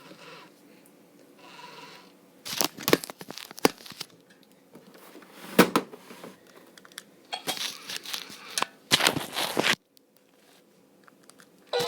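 Several bursts of rustling, crackling handling noise, with a few small clicks near the end.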